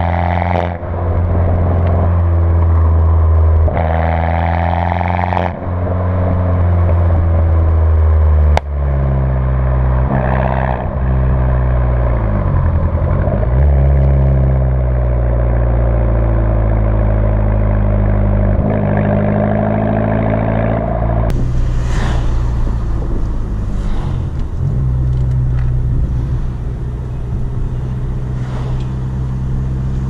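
Alfa Romeo MiTo 1.4 T-Jet turbocharged four-cylinder with a straight-through exhaust, heard from inside the cabin on the move. It accelerates through several gears in the first nine seconds, its pitch rising and then dropping at each shift. After that it runs at steadier revs, and a rushing noise joins in about twenty seconds in.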